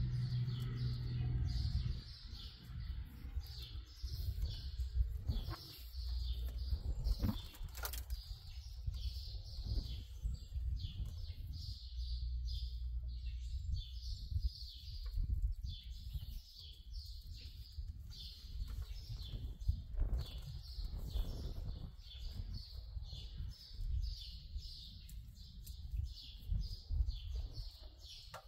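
Small birds chirping over and over, about two short high calls a second, over a steady low rumble. A few sharp clicks stand out.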